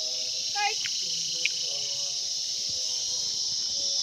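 A chorus of insects trilling in a steady, high-pitched drone that never breaks.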